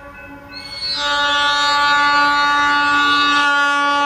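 Air horn of a Budd RDC rail diesel car sounding a long, steady blast that starts about half a second in.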